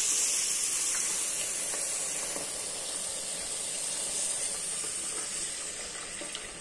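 Chopped onion, garlic, bell pepper and tomato sizzling in hot olive oil in a pot: a steady high hiss that slowly fades.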